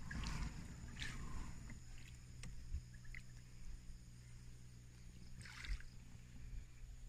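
Kayak paddle strokes in calm water: a couple of short splashing swishes in the first second or so and another about five and a half seconds in, with faint water trickle between them.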